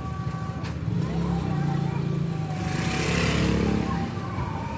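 Car engine running steadily at idle, with a brief hiss about three seconds in.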